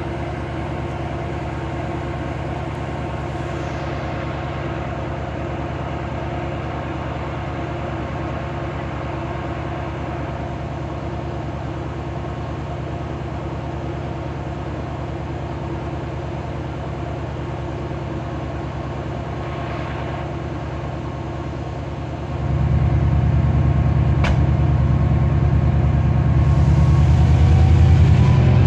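DRS Class 68 diesel-electric locomotive's Caterpillar V16 engine idling with a deep, steady hum. About 22 seconds in it powers up, growing louder and rising to the end, as the locomotive takes power to depart.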